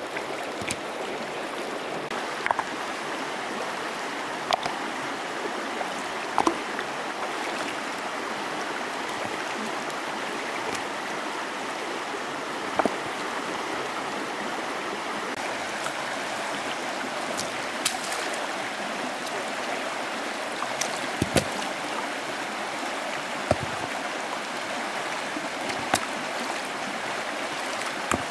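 Shallow river flowing steadily, with sharp knocks every few seconds as stones are set down on other stones in the water.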